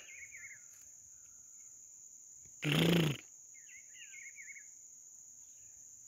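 Small birds twittering in quick descending chirps, once at the start and again about four seconds in, over a steady high-pitched insect drone. About halfway through, a loud half-second voice-like burst with a low pitch cuts across.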